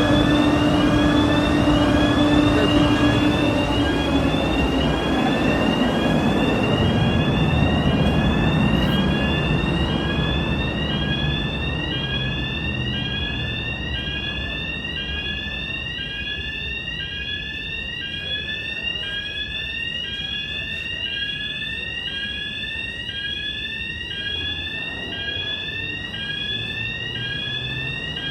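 Fire alarm sounder going off during an alarm system test: a steady run of short rising electronic sweeps, about one and a half a second. Under it, a heavy rushing noise and a low hum fade away over the first several seconds.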